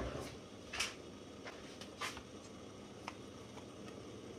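A spoon knocking and scraping against a stainless steel mixing bowl as arrowroot powder is spooned in: a sharp knock at the start, then two short scrapes and a few faint clicks.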